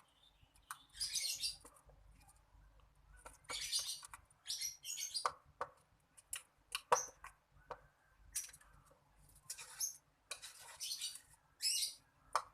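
Small birds chirping in quick repeated bursts of high chirps, with a few sharp clicks in between.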